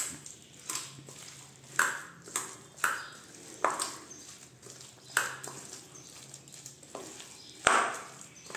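Hand mixing minced chicken with chopped onion and spices in a stainless-steel bowl: the bowl gives irregular sharp clinks with a short ring as it is knocked during the mixing, about eight or nine of them, the loudest near the end.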